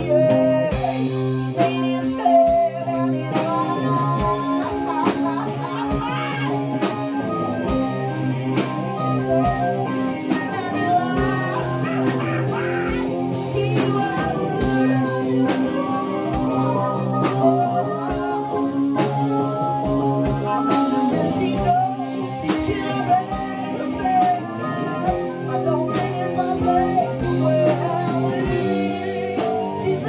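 Blues band playing live: a harmonica played into a hand-held microphone over guitar and a drum kit keeping a steady beat.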